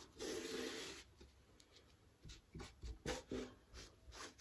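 Cloth rag rubbing over the rusty painted metal deck of a Suffolk Super Colt cylinder mower: one longer wipe in the first second, then several short rubbing strokes later.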